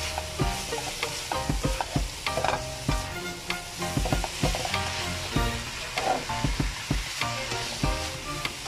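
A spatula scraping and knocking irregularly against a nonstick wok, stir-frying minced pork with diced potato and carrot, over a steady sizzle from the hot pan.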